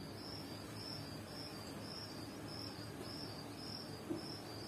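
A cricket chirping in a steady, even rhythm, short high chirps about three a second, over a faint background hiss.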